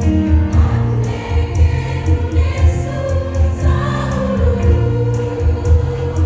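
A choir singing in parts to an accompaniment with a steady, pulsing bass beat.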